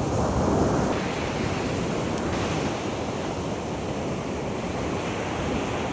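Ocean surf breaking and washing up a sandy beach: a steady rush of noise, a little louder in the first second.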